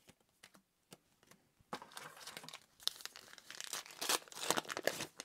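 A trading-card booster pack wrapper being torn open and crinkled: a few faint clicks, then a run of short rustling, crackling bursts from a couple of seconds in until near the end.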